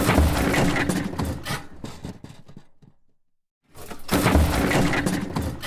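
A crash-and-shatter sound effect laid over the drone's crash footage: a sudden loud smash with clattering debris that dies away over about three seconds. The same crash plays again nearly four seconds in.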